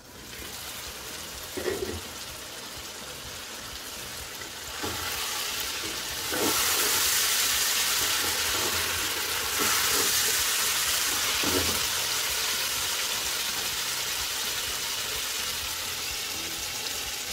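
Carrots and green beans in tomato sauce sizzling in a nonstick pot once the lid is off, stirred with a wooden spatula that knocks against the pan a few times. The sizzle grows louder about six seconds in.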